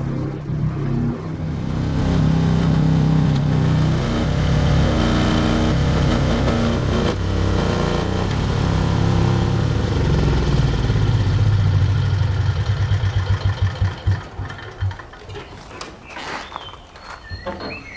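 Mini excavator's engine running and changing pitch under varying load as the machine is worked, then running down in slowing pulses and stopping about fourteen seconds in. A few clicks and knocks follow.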